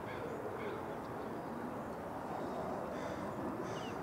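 Outdoor ambience at a pond: a steady low rumble, with faint, brief bird chirps above it a few times near the start and near the end.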